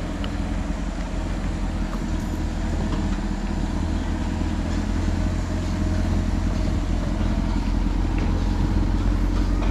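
A motor vehicle's engine running close by: a steady low rumble that grows slightly louder.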